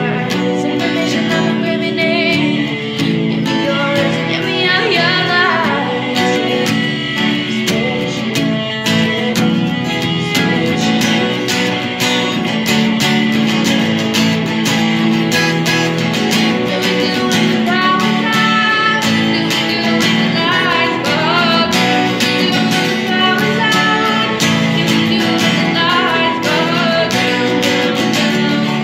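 A woman singing in phrases over steady strumming on an acoustic guitar.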